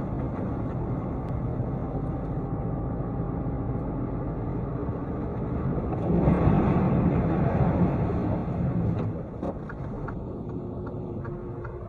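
Road and engine noise from a moving vehicle, heard through a dashcam. It gets louder for about three seconds around the middle, then eases off.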